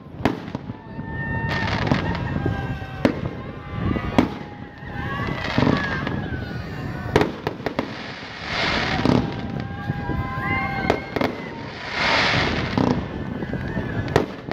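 Fireworks display: repeated sharp bangs of shells bursting at irregular intervals, with longer hissing stretches between them.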